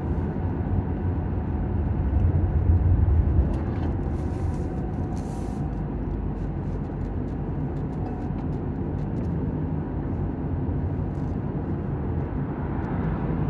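Steady road and engine noise of a car driving at speed, heard from inside the cabin: a low rumble of tyres and engine, a little louder a couple of seconds in.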